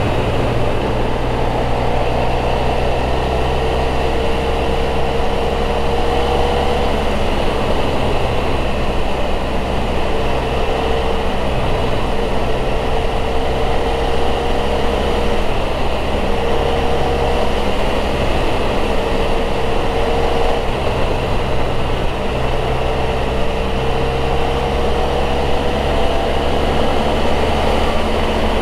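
Motorcycle engine and wind noise heard from the rider's seat while cruising, a steady hum whose engine note slowly rises several times as the bike gathers speed.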